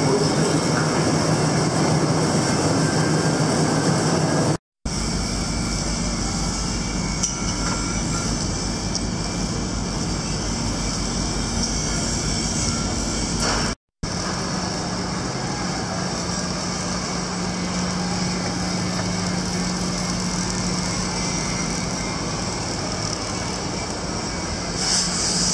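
Steady outdoor city ambience: a continuous low rumble of traffic and machinery. It drops out twice, briefly, where the footage is cut.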